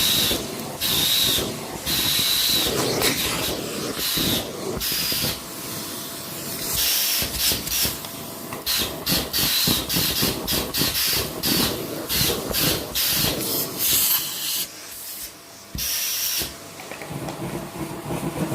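Vacuum cleaner running with its attachment on, the high suction hiss cutting in and out irregularly many times, a thin high whine showing in some stretches.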